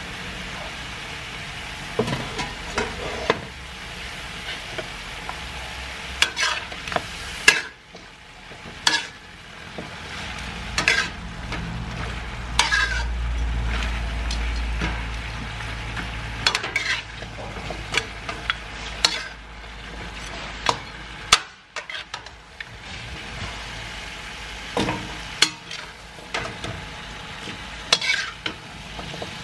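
Native chicken pieces and papaya chunks sizzling as they are sautéed in an aluminium wok. A metal spoon stirs and scrapes them, with sharp clacks of the spoon against the pan every second or two.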